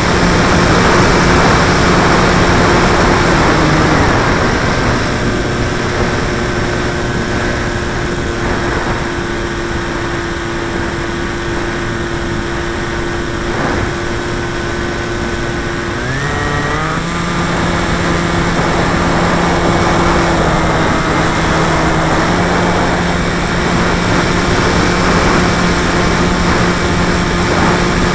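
Electric model plane's motor and propeller, heard from a camera on board, running steadily with wind rushing past the microphone. The pitch drops as the throttle is eased back about four seconds in, and glides back up about sixteen seconds in as the throttle is opened again.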